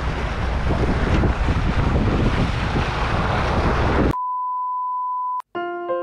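Strong wind buffeting the microphone over the sea for about four seconds, cut off abruptly by a steady high-pitched beep lasting just over a second; after a brief gap, electric piano music begins.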